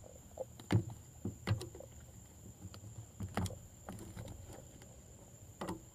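Glue slime being stirred with a plastic spoon in a cup: a handful of scattered short taps and knocks, roughly one a second.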